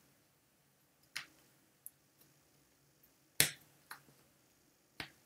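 A few short, sharp clicks or snaps over near silence, the loudest about halfway through.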